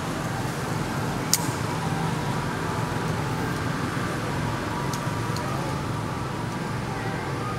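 Steady outdoor background noise, a constant rumbling hiss with faint wavering tones in it, broken by one sharp click a little over a second in.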